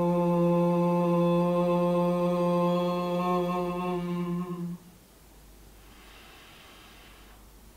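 A woman chanting a long Om on one steady low note, which ends about five seconds in. After a short pause, the next Om begins at the very end.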